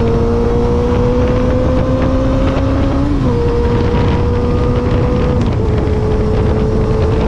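Yamaha XJR400's air-cooled inline-four running through a straight-pipe exhaust while riding, the engine note rising steadily under acceleration, then dropping at a gear change about three seconds in and holding steady after. Wind buffets the microphone throughout.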